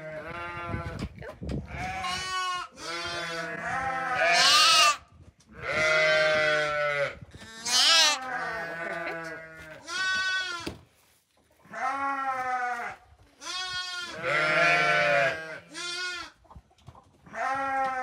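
Lambs bleating over and over as a lamb is held for tail docking and vaccination: about a dozen loud, wavering calls at more than one pitch, with a brief pause just past the middle.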